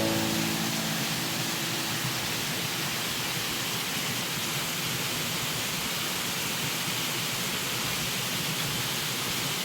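Steady rushing of flowing water, an even hiss with no gusts or breaks.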